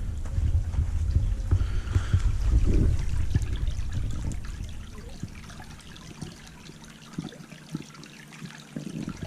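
Small creek trickling over its bed in a steady, gentle flow. A low rumble on the microphone in the first half fades out about five seconds in, leaving the trickle on its own.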